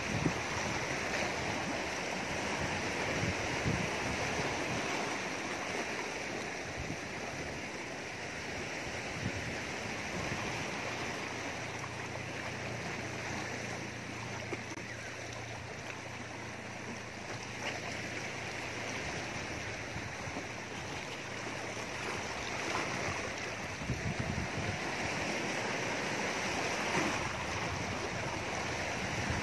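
Small sea waves washing and splashing steadily against shoreline rocks.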